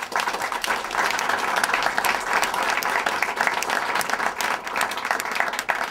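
Small seated audience applauding, steady clapping that drops off at the very end.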